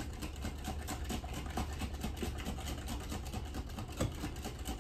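Wire whisk beating thin cake batter in a glass mixing bowl: fast, even strokes, several a second, working lumps out of the batter. A steady low hum runs underneath.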